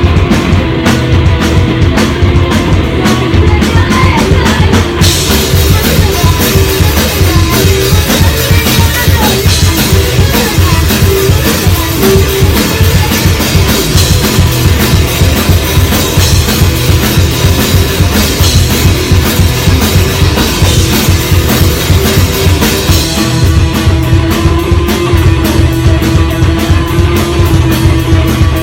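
Rock band playing loud, live, with a full drum kit. Cymbals come in about five seconds in and drop out near the end.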